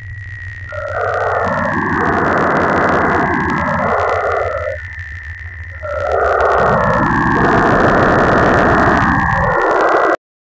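Image sonification of a woven folk-textile pattern by the Szinaesthesia image-to-sound program: a dense, grainy wash of sound whose pitch band swells and narrows as the repeating cross-shaped motifs are scanned. It is quieter near the start and again around the middle, and cuts off abruptly near the end.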